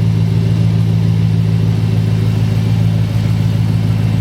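A 5.7-litre Hemi V8 idling steadily, just started after a change to new spark plugs and plug wires.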